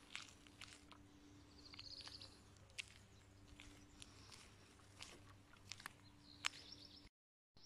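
Quiet outdoor evening ambience: faint bird calls with a short high trill about two seconds in and another near the end, scattered sharp clicks, and a faint steady hum. The sound cuts out completely for a moment near the end.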